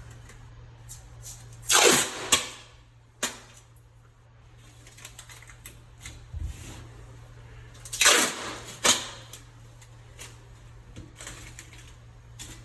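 Regular masking tape pulled off the roll in two loud strips, about two seconds in and again about eight seconds in, with lighter ticks and crackles of tape being torn and pressed down between them. A steady low hum runs underneath.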